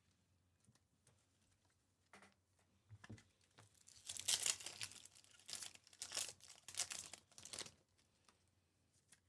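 The foil wrapper of a 2024 Topps Chrome Update baseball card pack is torn open and crinkled by hand, in a run of crackling bursts over about four seconds. The loudest tearing comes right at the start of the run.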